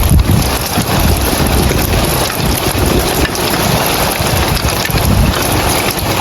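Rain falling steadily on roof tiles, an even hiss, over a low rumble that swells and fades.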